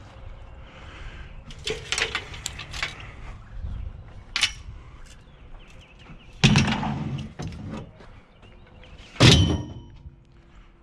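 Scrap being lifted and dropped: a run of clanks and knocks, then two heavy thuds about six and nine seconds in. The second thud leaves a brief metallic ring.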